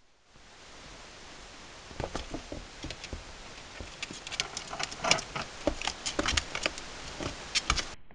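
Sugar glider scrabbling about: a light, irregular patter of claw taps and scratches that starts about two seconds in and grows busier.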